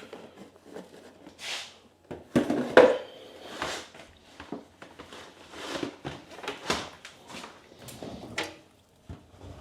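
A washing machine being loaded with clothes and detergent by hand: a series of irregular rustles and knocks, the loudest about three seconds in.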